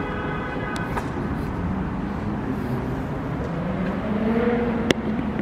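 Road traffic passing, with a vehicle engine rising in pitch and growing louder about three to four seconds in. A sharp click comes near the end.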